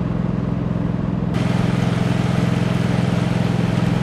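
An engine running steadily, with a steady hiss joining it about a second in.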